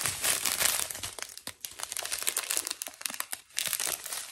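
Clear plastic packet of diamond-painting drills crinkling and crackling as it is handled and stretched. The crinkling is busiest in the first second and eases to a brief lull about three and a half seconds in before picking up again.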